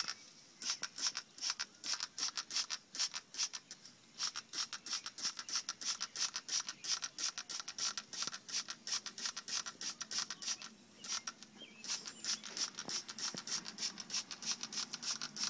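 Hand trigger spray bottle squirting onto a fiberglass boat hull, a rapid run of short hissing squirts about three or four a second, broken by two brief pauses.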